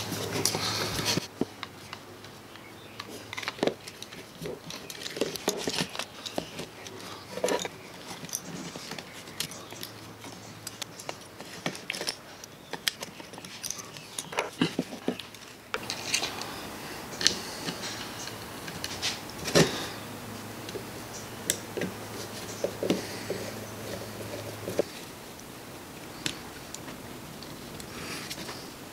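Small workbench handling sounds as needle-nose pliers and fingers fit crimp spade connectors onto an angle grinder's switch wires: scattered light clicks and taps of metal and plastic. A steady low hum runs underneath and stops near the end.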